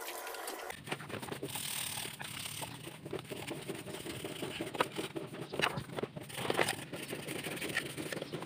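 A brush scrubbing wet plastic vacuum cleaner parts (the mesh filter and the dust-container lid), with scattered light taps and knocks of the plastic being handled.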